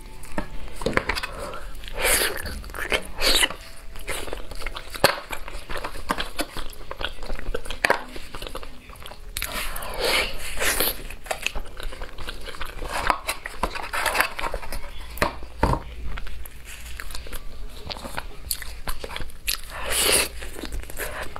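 Close-up eating sounds as a pig's trotter is bitten, torn and chewed, with many short clicks and mouth smacks at an irregular pace throughout.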